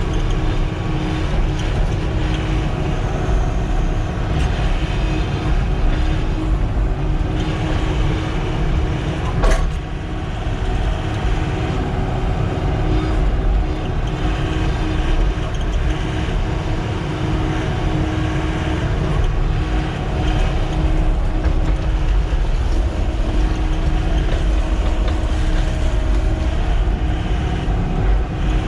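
Sany SY-95 excavator's diesel engine running steadily as the machine works, with a steady droning tone and one sharp click about ten seconds in.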